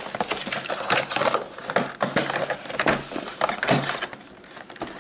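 Cardboard product box being handled and opened on a wooden table: a quick run of crackles, scrapes and taps from the flaps and packaging, easing off briefly about four seconds in.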